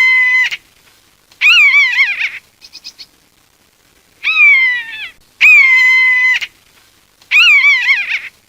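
Buzzard calling: a series of high, drawn-out calls, one falling in pitch, one long and held, one wavering. Each series ends in a short run of faint rapid ticks, and the whole series plays twice.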